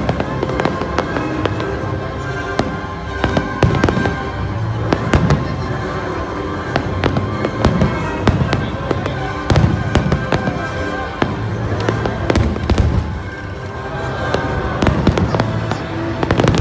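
Aerial fireworks shells bursting overhead: a long run of irregular bangs and crackles, several a second at the busiest moments, over loud background music.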